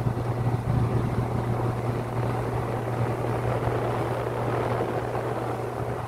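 Marine diesel engine running with a steady low hum, slowly getting quieter.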